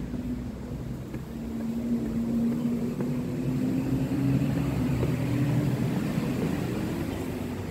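A motor vehicle's engine passing close by, a steady hum that grows louder and then fades away.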